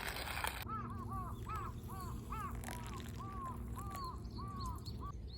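Crow cawing repeatedly, a quick run of short arched caws about two to three a second, starting just under a second in and stopping shortly before the end.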